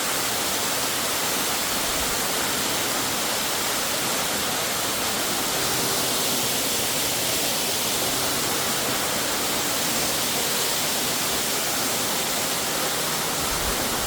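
Crabtree Falls waterfall: a steady, even rush of falling water, close by and fairly loud.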